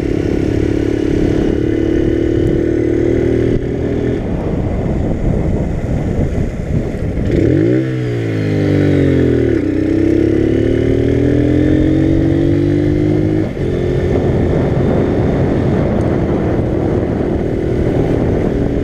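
Small motorcycle engine running while being ridden, steady at first. About eight seconds in the revs dip and climb again, then rise steadily as it accelerates, drop suddenly about halfway through and hold steady to the end.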